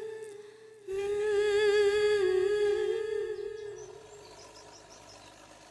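A high voice humming long, slowly wavering sustained notes. It breaks off briefly near the start, comes back louder about a second in, and fades out by about four seconds in, leaving a faint steady background noise.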